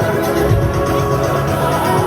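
Loud electronic dance music with a heavy bass and a steady beat.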